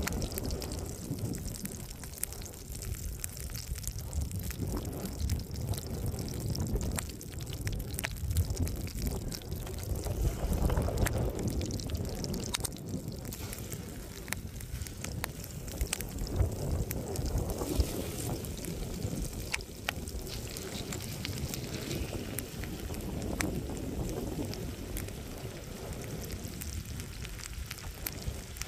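Butter sizzling and bubbling in a pan over a campfire, with scattered small pops and crackles, under a low rumble of wind on the microphone.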